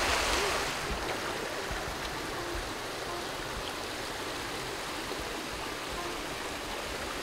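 A small woodland creek rushing and splashing over rocks, steady, a little louder in the first second.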